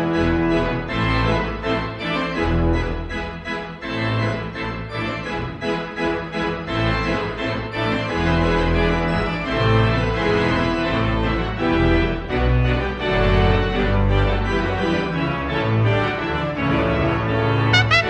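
Soft multi-tracked brass ensemble of flugelhorn, trumpet, trombone and baritone playing sustained, blended chords over a moving bass line. A brighter trumpet line comes in near the end.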